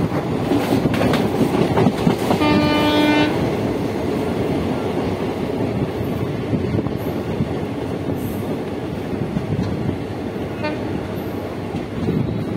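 Passenger train rolling into a station, heard from an open coach doorway: a steady rumble and rattle of wheels on the track, with a few clacks over rail joints in the first couple of seconds. A train horn sounds once, about two and a half seconds in, for just under a second.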